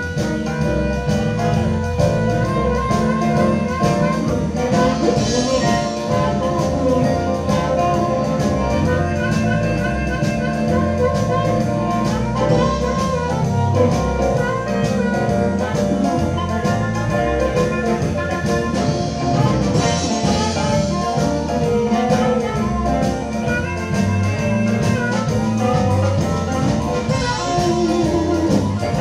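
Live blues band playing with a steady beat: a harmonica solos over piano, electric guitars, bass and drums.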